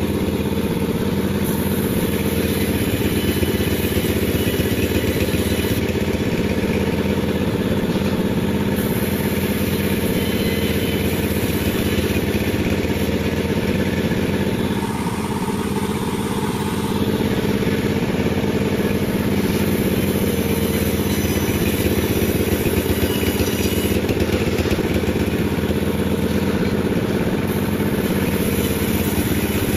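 Panda36 sawmill's engine running steadily under the saw, easing slightly for a moment about halfway through.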